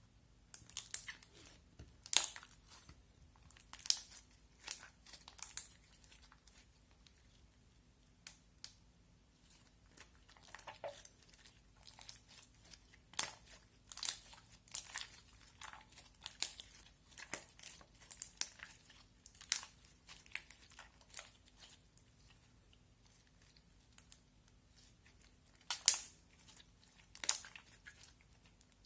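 Popcorn putty slime being pressed and stretched by hand, giving irregular crackles and sharp pops, a few of them much louder than the rest.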